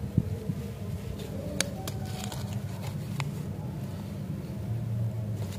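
A few light clicks and crinkles from the plastic wrapper of a Joker Chili Imli lollipop as it is picked up and handled, over a steady low hum.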